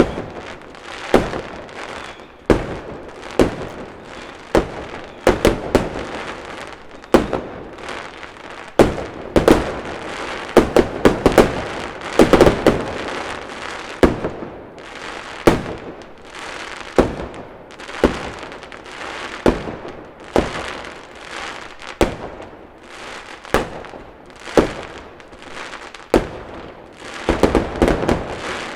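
Fireworks going off: a run of sharp bangs, one every second or two, with crackling between them, and tighter clusters of bangs about a third of the way in and near the end.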